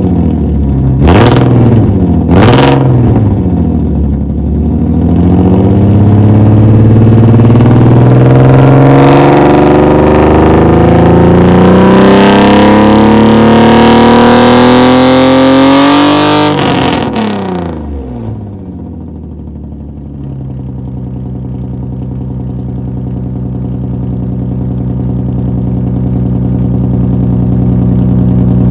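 Infiniti G35's 3.5-litre V6 being blipped quickly three times, then revved up in one long steady climb for about thirteen seconds. The revs drop off suddenly and it settles to a steady idle.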